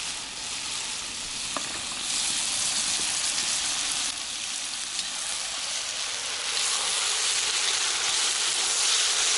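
Pork and beef frying hard in very hot oil in a cast-iron kazan, with a steady high sizzle. Sliced onions are tipped in and stirred with a metal skimmer, and the sizzle gets louder in the second half.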